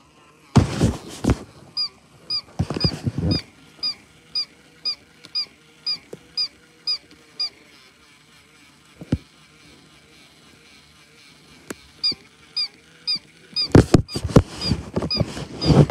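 Electronic plush toy cat giving short squeaky chirping calls, evenly spaced about two a second, stopping for a few seconds midway before starting again. Loud rustling comes in near the start and again near the end as the furry toy is handled against the microphone.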